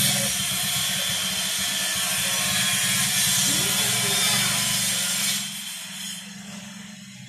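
A loud machine motor running steadily with a low hum and a hiss, which cuts back about five seconds in and fades away.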